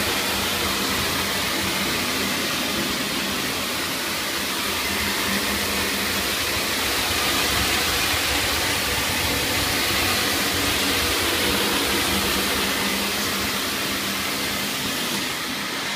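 Steady whooshing hum of tile and grout cleaning equipment running, with a low steady drone underneath.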